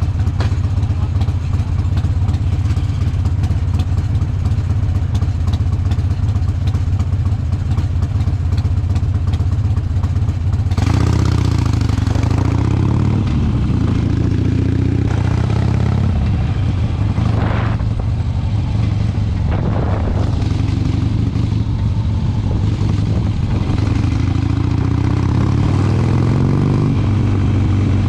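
Harley-Davidson V-twin engine running steadily under way with a deep low rumble. About eleven seconds in it gets louder and fuller, the revs rising and falling with two short sharp surges a few seconds apart as the bike accelerates.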